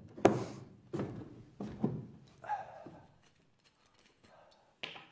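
Heavy footsteps and knocks on a wooden stage floor: a handful of separate thuds with a short echo, the loudest just after the start, then a pause and a short, sharp noise near the end.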